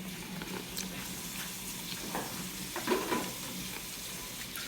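Eating noises close to the microphone: small crackles and clicks over a steady hiss and low hum, with a brief louder sound about three seconds in.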